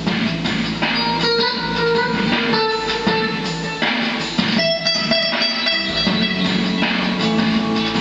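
Tokai TST-56 HSS electric guitar played through a Fender G-DEC 30 amp on a spacey delay setting: picked notes ring and hang on, changing about once a second, over the amp's drum backing track.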